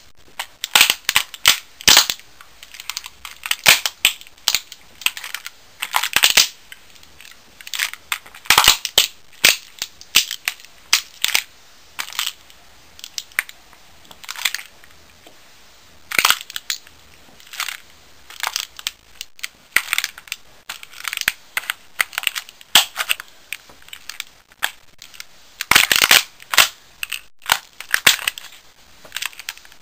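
Plastic toy gun being crushed under heavy work boots: irregular sharp cracks, snaps and crunches of breaking plastic as the boots stamp and grind it apart.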